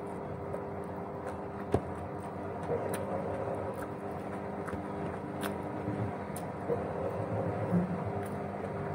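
A steady low mechanical hum with a few level tones, with scattered short clicks and crunches from eating, one sharper click about two seconds in.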